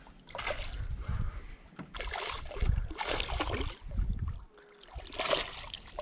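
A hooked smallmouth bass splashing and thrashing at the surface beside the boat, in several short, uneven bursts of splashing, with low thumps underneath.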